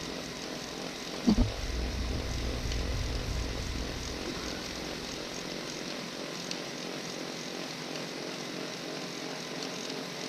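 Small engine of a snowblower droning steadily in the background, with a sudden short knock about a second in. A low rumble underneath dies away a few seconds in.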